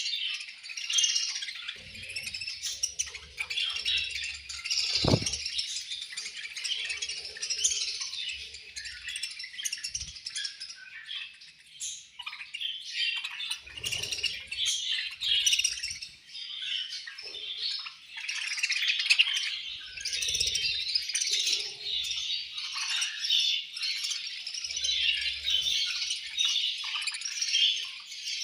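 Budgerigars in a flock chattering and chirping continuously. A brief low thump comes about five seconds in.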